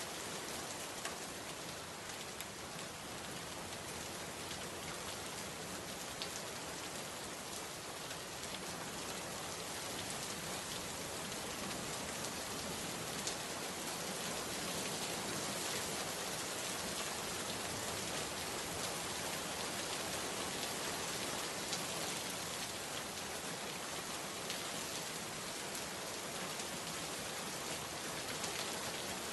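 Steady rain falling, an even hiss with scattered small drop ticks, growing slightly heavier partway through.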